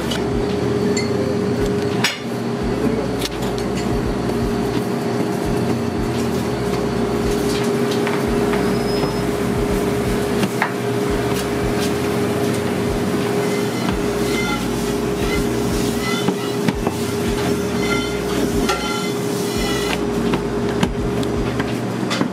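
Steady machine hum with scattered knocks and taps as pastry dough is pressed and rolled with a wooden rolling pin on a steel worktop.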